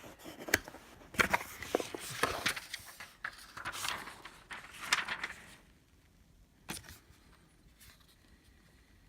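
A cardboard snack subscription box being opened and its packaging handled: rustling and scraping with sharp clicks for about five seconds, then a single knock a little later.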